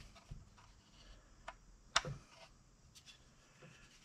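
Hands handling a plastic RV waste tank valve assembly: a few light clicks and taps of plastic parts, the sharpest about two seconds in.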